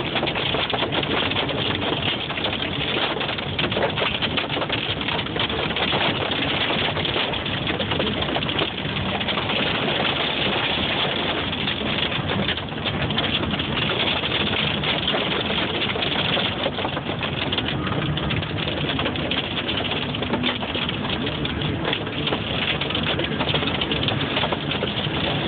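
Very heavy hail pelting a car's roof and windshield, heard from inside the cabin: a dense, steady clatter of countless small impacts.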